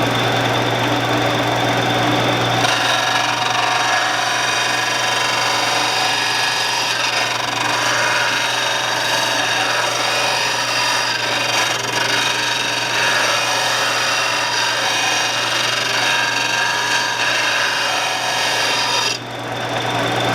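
Shopsmith motor running with a steady hum while a steel 3/8 lathe gouge is held against the abrasive to grind a new bevel. The grinding noise sets in about three seconds in, runs on steadily, and eases off for a moment near the end.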